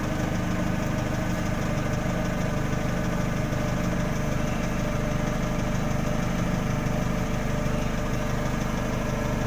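An engine running steadily at idle, an even drone with no change in speed.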